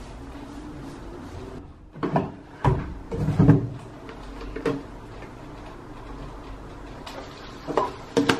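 Plastic detergent bottles handled at a washing machine's open detergent drawer: a few knocks and clunks, several close together about two seconds in, one near five seconds, and two more near the end.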